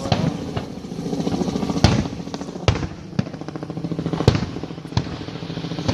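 Fireworks going off: about five sharp bangs at irregular intervals, over a steady low drone.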